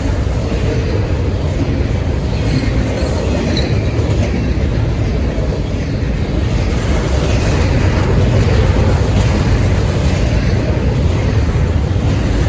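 Long intermodal freight train's cars rolling past at speed, a steady heavy rumble with wheels clacking over the rails.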